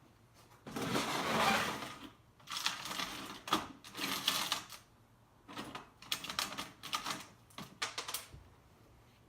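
Hand ratchet wrench clicking in several quick bursts with short pauses between them, turning out bolts on a semi-hermetic refrigeration compressor; the first burst, about a second in, is the loudest.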